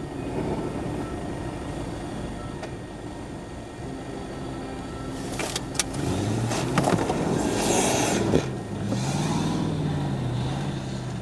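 Jeep Grand Cherokee SUV driven up out of a roadside ditch onto a dirt bank, its engine revving with the pitch rising and falling. A few sharp knocks come about five and a half seconds in, and a loud scrabbling rush follows around the eighth second as it climbs.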